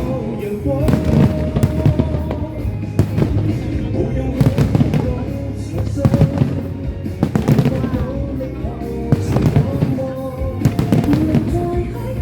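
Fireworks going off in quick succession, a dense run of bangs and crackles, over music with a melody playing underneath.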